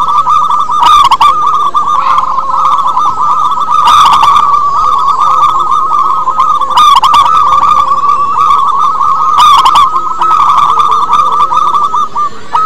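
Zebra doves (perkutut) cooing without a break, rapid rolling coos overlapping one another, with a louder, fuller call standing out about every three seconds.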